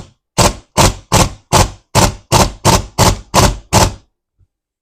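Earthquake XT stubby impact wrench hammering in about eleven short trigger bursts, roughly three a second, breaking loose the bolts that hold the two halves of a GSX-R1000 rear brake caliper together. The bursts stop about four seconds in.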